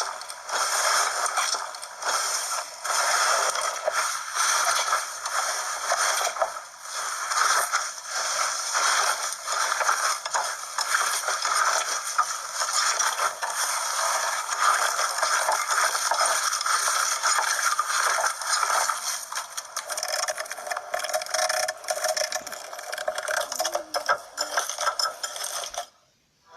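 Slime being squeezed and worked by hand, giving a dense run of crackling, clicking and scraping. It cuts off abruptly just before the end.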